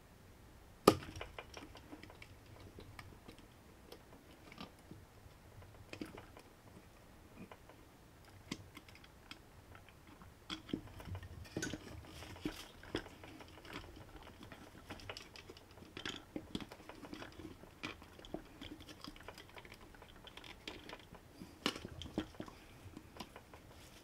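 Scattered small clicks, taps and knocks of hands handling a plastic lure turner and the wire-threaded lure body as the lure is mounted on it. One sharp knock about a second in is the loudest, with a busier run of clicks in the middle.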